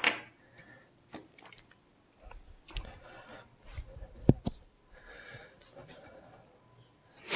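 Small metal door-lock parts being handled and fitted back together: scattered light clicks and scrapes, with one sharper metallic clink about four seconds in.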